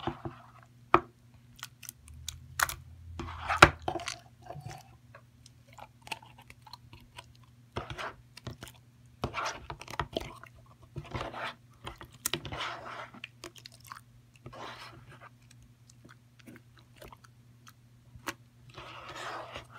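Wet slime being squeezed and kneaded by hand in a bowl of foamy liquid: irregular squelches, sticky clicks and pops.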